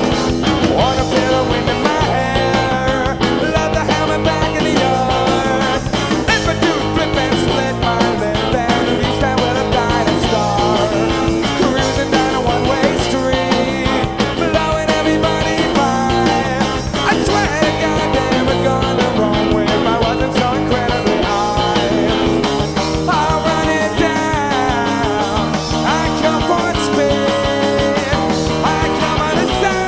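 Rock band playing live, guitar, bass and drums together in a continuous, steady full-band passage.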